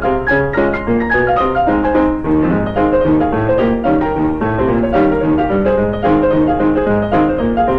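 Lively piano music: a steady stream of quick notes with chords underneath.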